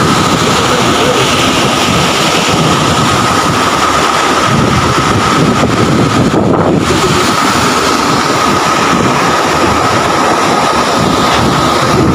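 Typhoon wind blowing hard and buffeting the microphone, with storm waves breaking over a seawall. The noise is loud and unbroken, with a steady high whistle running through it.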